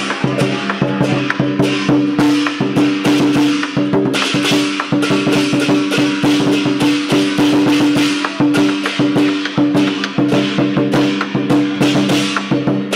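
Lion dance percussion: drum and cymbals beaten in a fast, steady rhythm.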